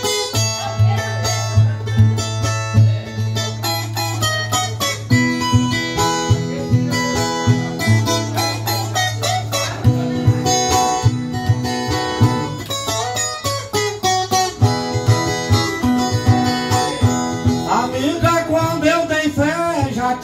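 Viola caipira (Brazilian ten-string viola) playing an instrumental break of plucked and strummed melody runs over a steady low bass. A man's singing voice comes in near the end.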